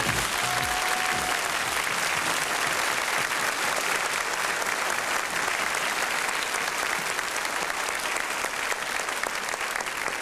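Studio audience applauding, a steady wash of clapping.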